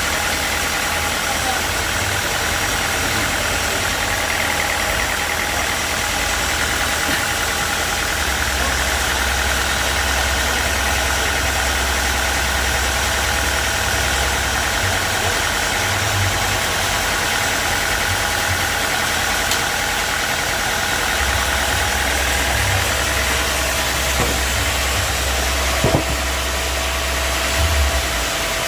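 Sawmill machinery running with a steady engine drone. A high, thin whine rides over it and fades out about 23 seconds in, and there is a single knock near the end.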